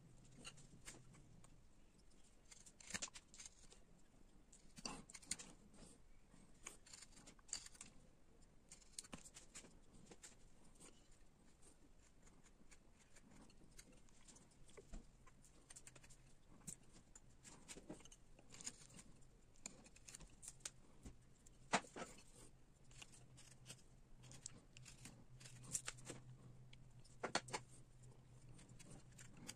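Faint, irregular cuts and scrapes of a hand carving blade paring linden wood, with small clicks; the sharpest cut comes a little past two-thirds through.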